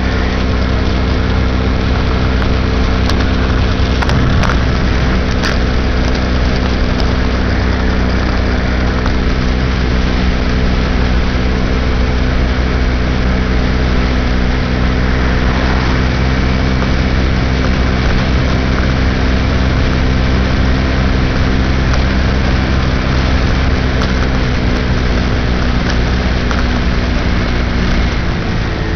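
2006 Baja SC50 moped's engine running at a steady cruising speed under a constant rush of wind and road noise. Near the end the engine note drops as the moped slows down.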